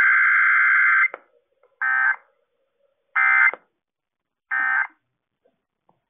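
Emergency Alert System tones heard through a radio receiver: a steady electronic tone cuts off about a second in, followed by three short, equal bursts of warbling digital data tones spaced about a second apart, the SAME data bursts of an EAS test.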